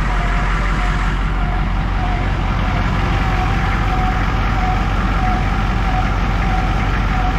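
Humvee's V8 diesel engine idling steadily, just started on its glow plugs and running to pump oil into a freshly fitted oil filter. A faint high whine wavers over the engine sound.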